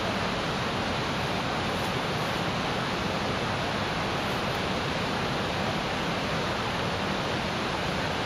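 Steady, even rushing noise with no rhythm or pitch, unchanging throughout.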